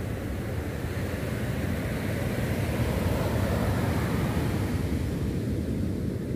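Ocean surf breaking and washing up a sandy beach: a steady roar that swells about two to four seconds in. Wind rumbles on the microphone underneath.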